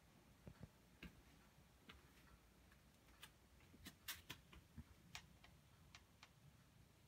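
Near silence broken by faint, irregular light clicks and taps, about a dozen, most of them clustered in the middle.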